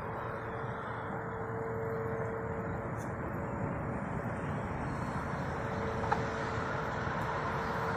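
Steady road traffic noise from vehicles crossing the highway bridge overhead, a continuous hiss with a steady low hum through it.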